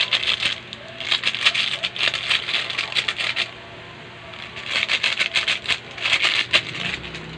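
Metal spatula scraping and clinking against a metal wok while stir-frying vegetables. It comes in several bursts of rapid scrapes with short pauses between, and the longest burst runs about two seconds.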